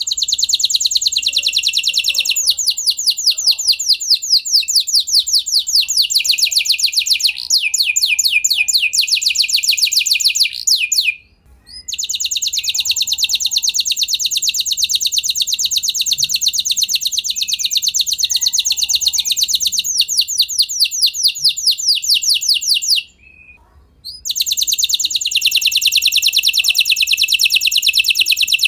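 F1 canary singing long phrases of rapid, high trills, with two brief pauses.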